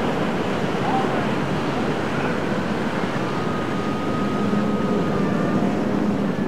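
Breaking surf and churning whitewater with wind on the microphone. Under it, a small boat's outboard motor runs at a steady pitch.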